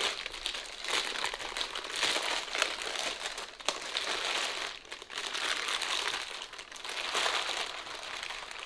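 Clear plastic bag crinkling and rustling as it is pulled off a coffee grinder, going on and off with a few short pauses.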